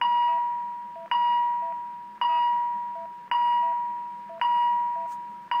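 Philips MRx monitor-defibrillator beeping in pacing mode. A ringing tone starts sharply a little slower than once a second and fades before the next, with faint short lower blips in between.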